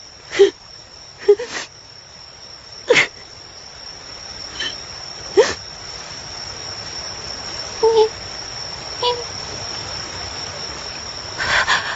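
Crickets chirping as a steady high drone, broken every second or two by short vocal sounds, some sliding up or down in pitch.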